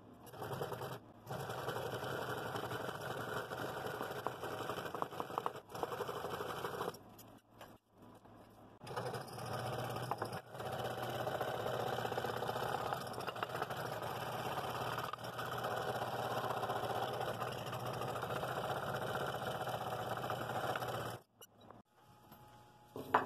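Scroll saw fitted with a number 7 blade, running and cutting through stacked wooden blanks along a traced outline. It runs steadily, with a short break about seven seconds in, and stops near the end.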